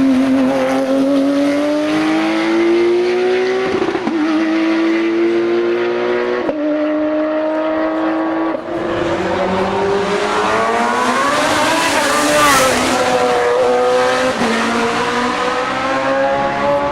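Racing car engine at high revs, accelerating hard up through the gears: the pitch climbs steadily and drops sharply at each gear change, several times. Around the middle there is a brief hiss and the pitch dips and recovers.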